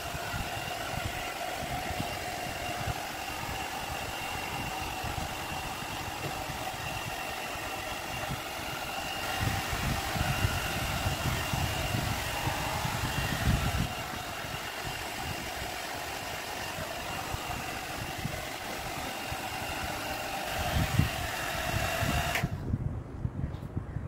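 Agaro volumizer hot-air brush running: its fan motor gives a steady whine over the rush of blown air as the brush is worked through hair. It cuts off suddenly near the end.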